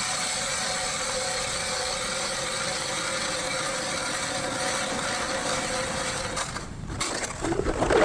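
A motor running steadily at a constant pitch, cutting off about six and a half seconds in, followed by a short louder rustle near the end.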